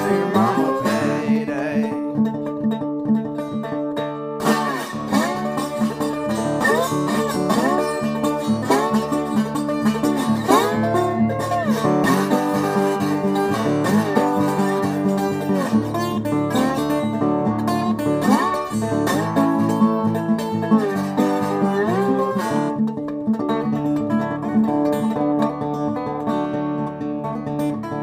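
Country-style background music with plucked guitar and bending, sliding notes.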